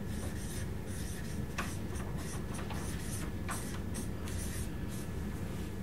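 Handwriting with a pen: a run of short scratchy strokes, irregular and a fraction of a second each, over a steady low room hum.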